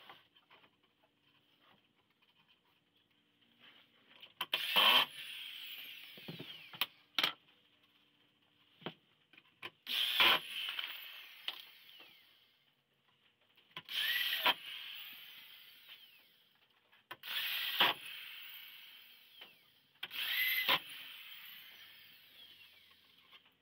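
Corded electric drill run in five short bursts, each time its motor whine falling away as it spins down after the trigger is released. A few small clicks fall between the bursts.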